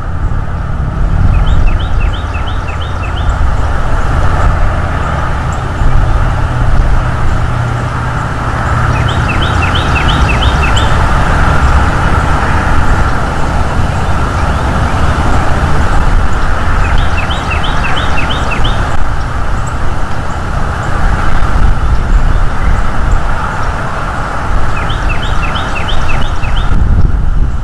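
A small songbird sings a short phrase of six or seven quick notes four times, about eight seconds apart, over a loud, steady low rumble.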